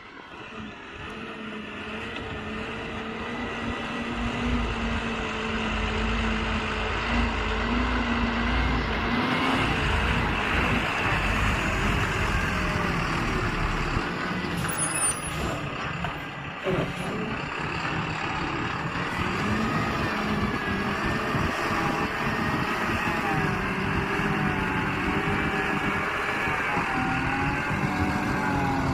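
Heavy diesel engine of a backhoe loader or dumper working, growing louder over the first few seconds, then running steadily with the revs rising and falling. There is a short hiss about halfway through.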